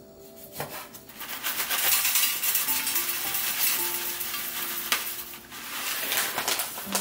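Dried cut seaweed poured from a plastic bag into a small stainless steel container: the bag crinkles and the dry flakes rustle and patter onto the metal. It starts about a second in and stops near the end.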